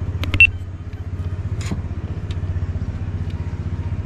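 A small engine running at a steady low throb. A few sharp clicks and a brief high squeak come about half a second in.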